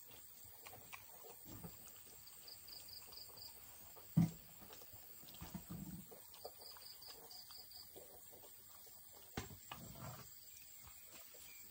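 A dog eating from a food bowl on the ground, with scattered chewing and nosing sounds, a sudden short loud knock about four seconds in, and further bumps near six and ten seconds.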